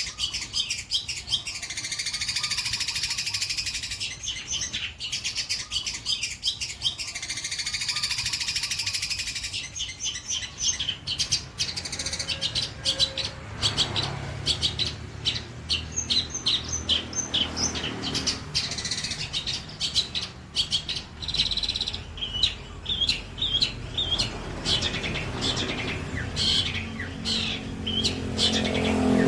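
Long-tailed shrike (cendet) singing a varied song: long runs of rapid warbling trills for about the first ten seconds, then quick, sharp repeated chirps, several a second.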